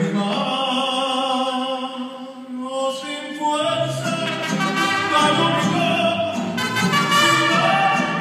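Operatic solo singing: one voice holds long notes unaccompanied. About three and a half seconds in, a mariachi band comes in underneath and accompanies it.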